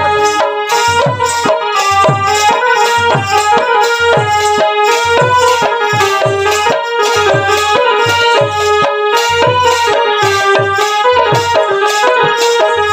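Folk instrumental music: a barrel drum beats a steady rhythm of about two strokes a second under a held, many-toned melody line.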